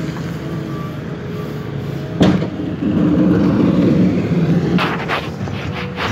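Heavy road-works machinery running steadily, with a sharp knock about two seconds in and the sound swelling for a couple of seconds after. Several clicks and knocks near the end from the phone being handled and its lens covered.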